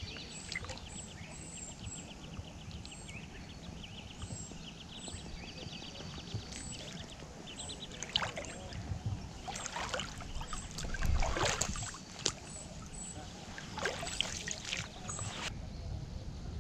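Lake water lapping and sloshing at the shoreline rocks, with small birds chirping over and over in the background and a few short rustling bursts in the second half.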